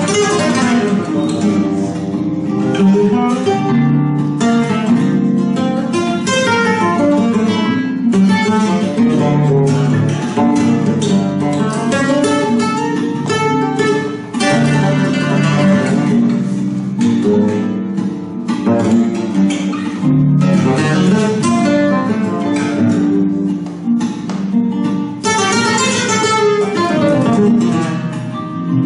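Flamenco guitar playing: quick runs of plucked notes mixed with strummed chords.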